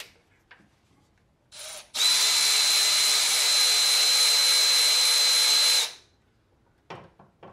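Handheld cordless power tool (a power ratchet) gives a short blip, then runs steadily for about four seconds with a high, even motor whine before stopping abruptly.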